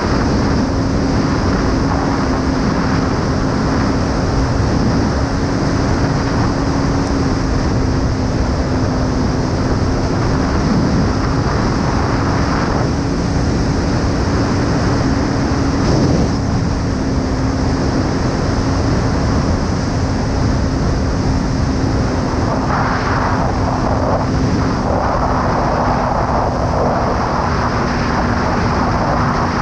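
Kawasaki ER-5's parallel-twin engine running at a steady speed while riding, its pitch holding even throughout, under heavy wind noise on the microphone.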